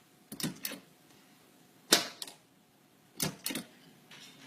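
Tablature typewriter keys striking with sharp clacks in three quick groups of two or three, about a second and a half apart, restruck to darken the impression of each note.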